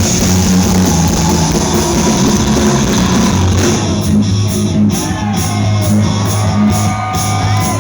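Live heavy rock band playing loud, with distorted electric guitar and drums. About halfway through, the full band thins out to held, bending guitar notes.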